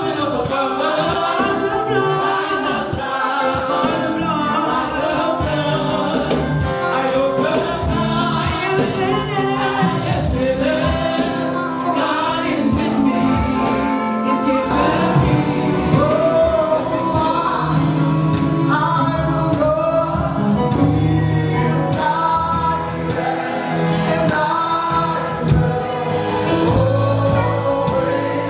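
Live gospel worship music: a group of voices singing over sustained instrumental backing, with a slightly crackly, distorted sound from being recorded straight into a camera microphone.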